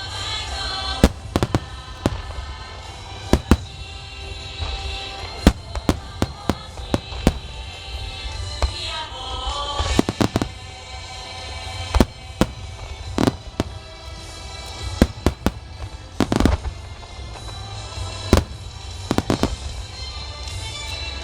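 Aerial fireworks shells bursting in an irregular string of sharp bangs, a couple each second at times, over continuous music.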